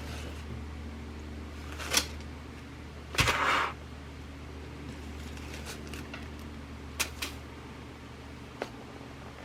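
Hands handling glass seed beads and their packets: a few sharp clicks and knocks, and a louder rustle about three seconds in, over a steady low hum.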